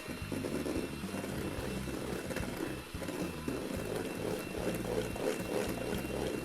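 Electric mixer running steadily, whipping egg whites and sugar into meringue, with a steady high whine over a low motor hum.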